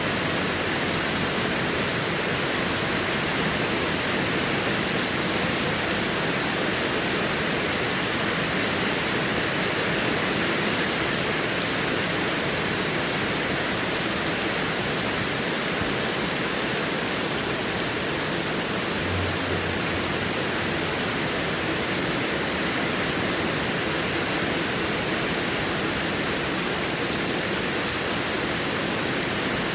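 Heavy rain falling steadily in an even, unbroken hiss. A brief low rumble comes about two-thirds of the way through.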